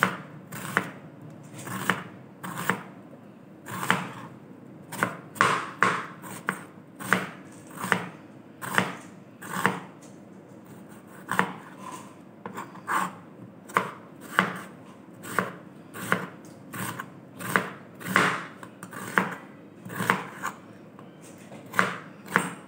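Kitchen knife slicing a red onion into thin slices on a cutting board: a steady run of sharp knocks, each stroke ending on the board, about one to two a second.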